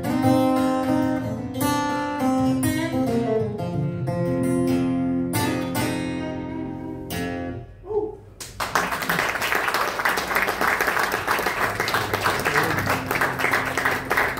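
Acoustic guitar fingerpicking a ragtime blues, coming to its final notes about eight seconds in. Right after, an audience applauds, a dense steady clapping.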